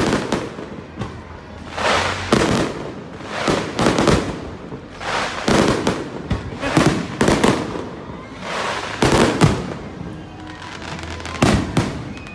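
Fireworks going off in a rapid series, about nine bangs each followed by a short crackling fizz, with a longer gap before a last one near the end.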